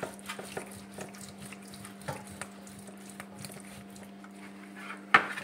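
Small clicks and taps of kitchen items being handled, with a sharper knock about five seconds in, over a steady low hum.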